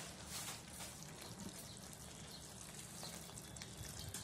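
Faint sizzling of a thick green prawn-and-potato curry cooking in a pan.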